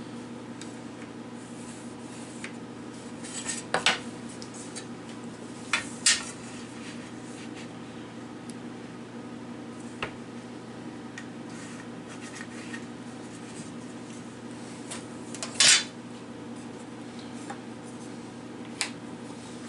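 Scattered clicks and clinks of small hard tools being picked up and set down on a workbench, the loudest a few seconds in and about two-thirds of the way through, over a steady hum.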